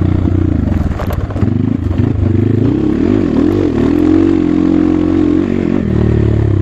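Dirt bike engine running under changing throttle as it is ridden along a rough trail, its pitch rising and falling repeatedly. A few sharp clatters come about a second in.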